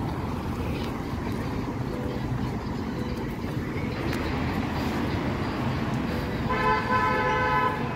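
Steady street noise with passing traffic, and a vehicle horn sounding once, a level blast of a bit over a second, near the end.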